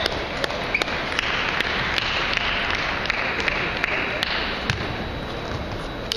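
Irregular sharp clicks of table tennis balls striking bats and tables, echoing in a large hall over a steady background murmur.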